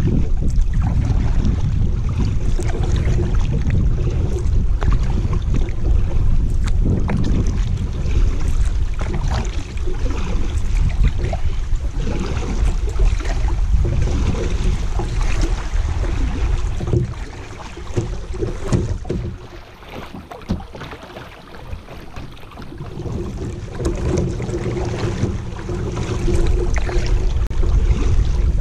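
Kayak paddle blades dipping and splashing in a fast river current, with wind rumbling on the microphone; it quietens for a few seconds about two-thirds of the way through.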